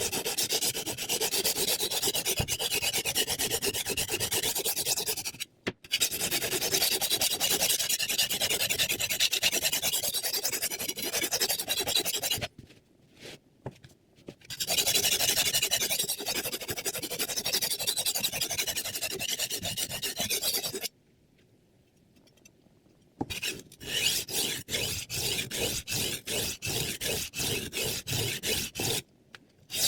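Steel knife blade scraped back and forth across a diamond sharpening plate. Long runs of fast continuous rasping stop three times. After the last stop the rasping turns into separate strokes at about three a second.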